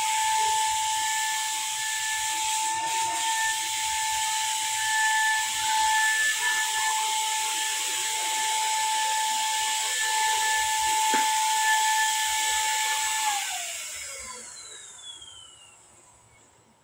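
Handheld electric paint spray gun spraying paint: a steady airy hiss with a high, even motor whine. About thirteen seconds in, the whine drops in pitch and the hiss fades out as the motor winds down.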